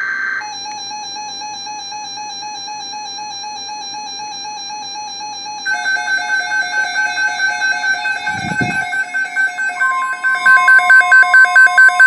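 Weather alert radios sounding their alarms for a severe thunderstorm watch. First comes a warbling electronic alert tone. A second radio's pulsing beeps join about halfway through. Near the end a steady alert tone starts, along with loud rapid beeping of about three to four beeps a second.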